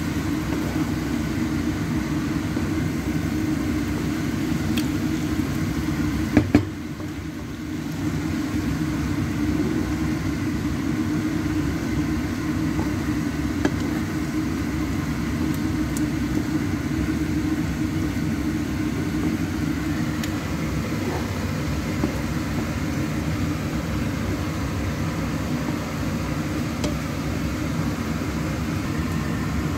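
Steady low mechanical drone, with a sharp click about six and a half seconds in and a short quieter stretch after it before the drone resumes.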